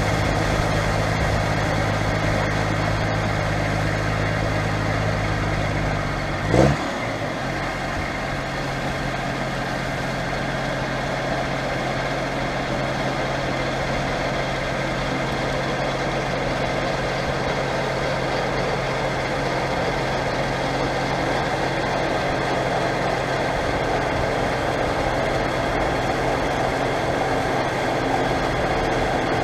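JCB Fastrac 3230's Cummins diesel engine running steadily in the field. About six and a half seconds in there is a quick rising sweep and a short loud peak, after which the engine note settles lower and steady.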